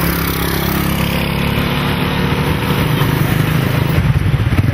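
An engine running, its pitch falling over the first two seconds or so, over a steady low hum.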